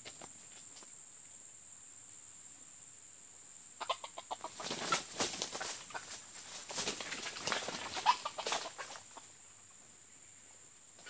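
Red junglefowl clucking in a quick run of short, sharp notes from about four seconds in until about nine seconds in, over a steady high-pitched whine.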